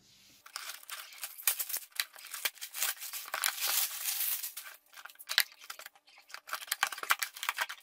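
Plastic shrink-wrap being cut open and pulled off a cardboard box, crinkling and crackling in quick irregular rustles.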